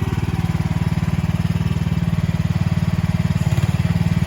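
The 420 cc four-stroke gas engine of an Agrotk YM10 mini excavator running steadily with a fast, even putter.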